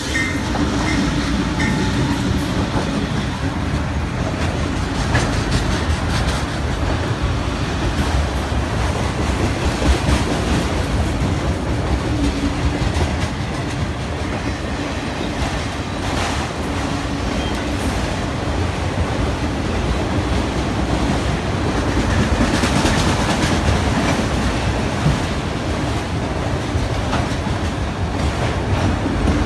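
Freight train passing at close range: the CSX GE C40-8W and C40-9W diesel locomotives go by in the first seconds, followed by empty autorack cars, their steel wheels running on the rails with a steady rumble.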